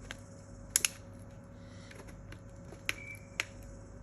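A few small sharp clicks and taps from handling smartphone parts during reassembly: two in quick succession about a second in, and two more near the end.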